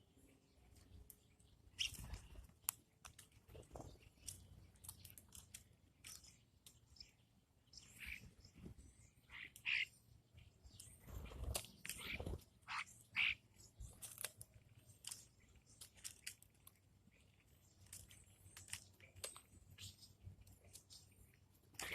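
Faint, short bird chirps now and then, mixed with scattered small clicks and taps.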